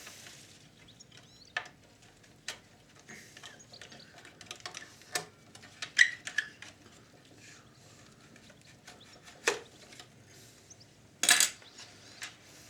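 Scattered small clicks and taps of tools and the recorder's plastic and metal parts being handled during disassembly, with a short louder clatter about eleven seconds in.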